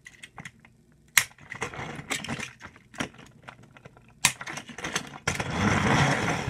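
Plastic Plarail toy engine and trucks being handled and coupled together: a run of sharp clicks and clacks, then a longer, louder burst of handling noise about five seconds in.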